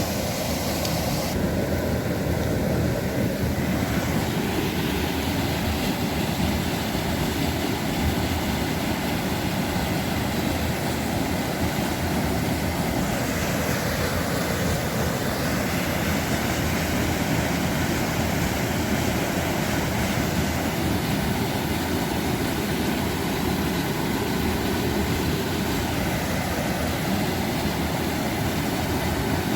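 Steady rushing of water over a small mountain-river waterfall, an even noise that doesn't change.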